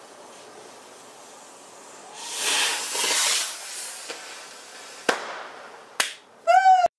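Fireworks going off: a loud rushing hiss for about a second and a half, then two sharp cracks about a second apart. Near the end comes a short, loud, high-pitched cry that rises and falls in pitch, the loudest thing heard.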